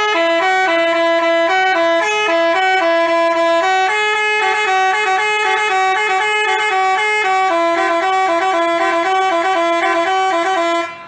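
Basuri telolet bus horn, a multi-trumpet air horn, playing a tune of short stepping notes that jump between a few pitches. It cuts off near the end.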